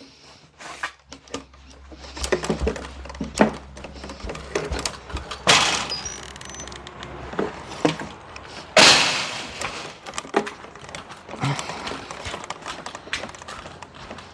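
Tools and metal bracket parts being handled and set down: scattered knocks and clicks, with two louder clattering crashes, each under a second, about five and a half and nine seconds in.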